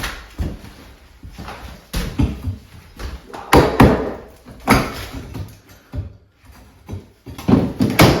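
Irregular knocks, bangs and scraping of hand demolition as material is pried loose and pulled away. The loudest bangs come about three and a half seconds in and again near the end.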